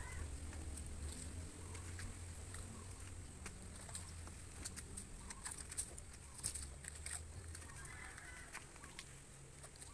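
Soft, scattered clicks and rustles of split banana-trunk strips being laid and pressed by hand onto a mushroom bed, over a low steady hum. A chicken clucks faintly about eight seconds in.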